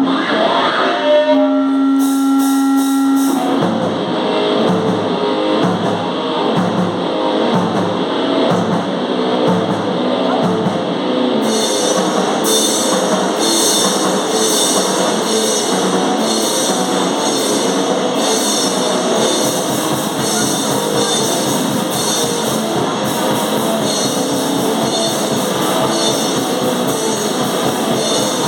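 Hardcore noise metal band playing live. A single held note rings for the first few seconds, then distorted guitars and drums come crashing in together, and heavy cymbal wash joins about twelve seconds in.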